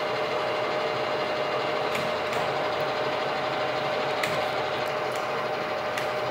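KNUTH KBF 50 drill-milling machine running: a steady motor and gear whine with a few faint clicks.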